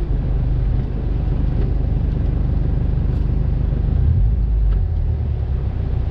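Turbocharged flat-four engine of a Subaru Impreza GC8 running at low revs, a steady low rumble that deepens about four seconds in.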